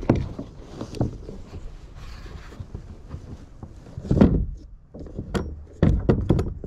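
Knocks and rubbing on a kayak as it is paddled: a louder, longer knock about four seconds in and a quick run of several knocks near the end.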